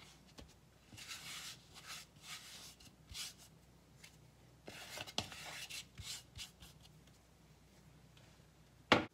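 Hands working flour into a soft sourdough starter dough on a stone countertop: irregular rubbing and scraping of dough and dry flour against the counter, with a single sharp knock near the end.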